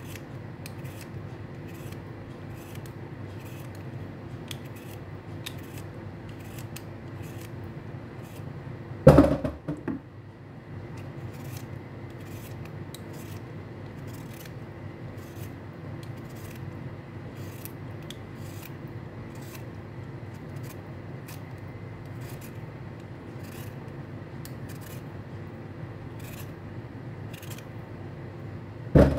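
Vegetable peeler scraping the skin off raw beetroot in short, regular strokes, about two a second. A loud knock about nine seconds in and another near the end.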